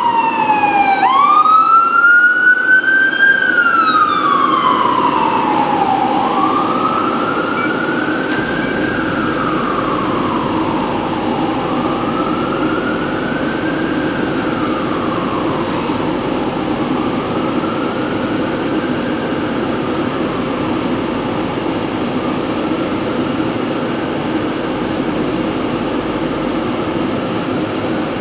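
An emergency-vehicle siren wailing, its pitch rising and falling about every five seconds and fading away over the first twenty seconds or so. Under it runs a steady rushing background noise.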